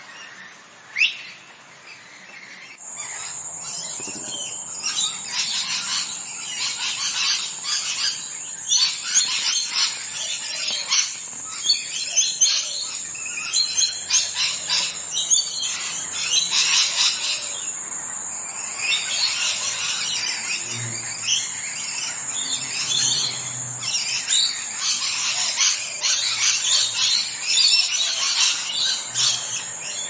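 Parrots chirping and chattering, many short calls overlapping one another, over a steady high whine that starts about three seconds in.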